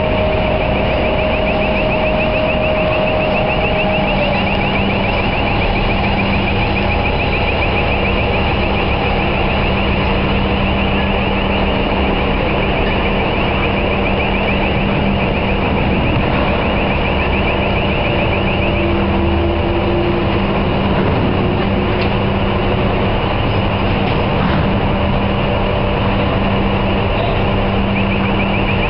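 Heavy lifting machinery running steadily with a low hum while a slung crate is lifted, under a fast, repeating, high warbling warning alarm that stops about two-thirds of the way through and starts again near the end.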